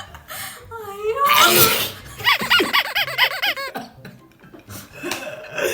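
A person sneezes about a second in, a rising 'ah' that breaks into a loud burst, followed by a stretch of rapid laughter. Another short vocal burst comes near the end.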